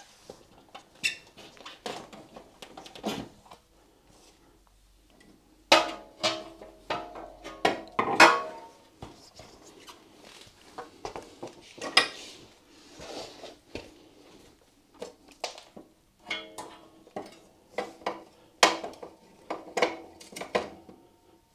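Irregular metal clinks and knocks as a motorcycle rear wheel is worked into place between the swingarm. The loudest knocks come about six and eight seconds in, with a quick run of sharp clinks near the end.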